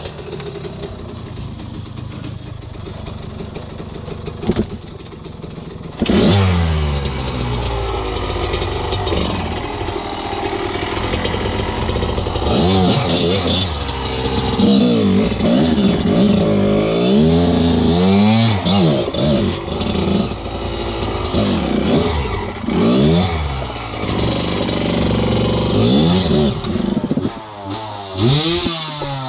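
Enduro dirt bike engine running, quieter and steadier at first, then about six seconds in getting louder and revving up and down again and again as the throttle is worked, the pitch rising and falling every second or two.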